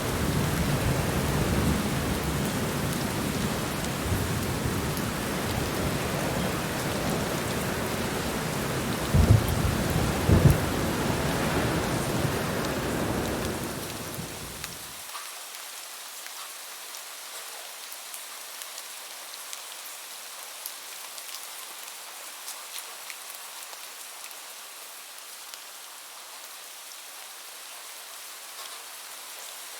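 Heavy rain with a low rumble of thunder and two loud thunder claps about a third of the way in. About halfway, the rumble cuts off abruptly and only a quieter, steady rain hiss with scattered drop ticks remains.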